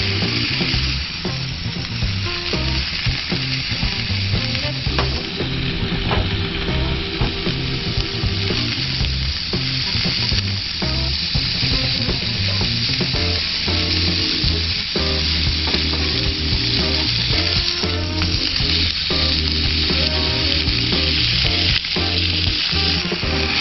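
Food sizzling and frying on a small seasoned iron grill plate, a steady crackling hiss, with background music carrying a bass line under it.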